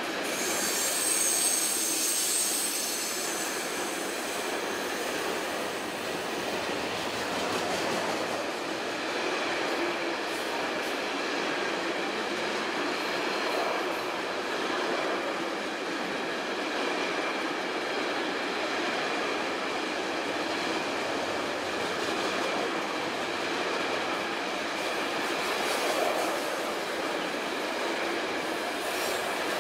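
A train running along the tracks with steady rolling noise, and a high wheel squeal for a couple of seconds near the start.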